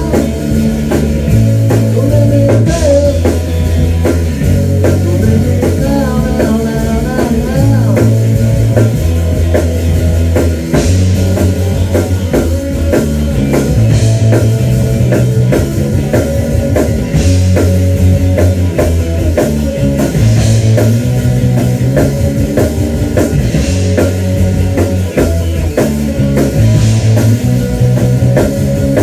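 Rock band playing live: electric guitars and bass over a drum kit, with a repeating low bass riff under steady drum hits. A wavering guitar line stands out a couple of seconds in.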